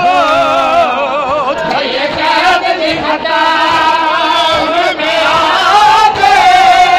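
A group of men singing a noha, a Shia mourning lament, in loud, wavering, ornamented voices, with the hand strikes of chest-beating (matam) heard faintly in the middle.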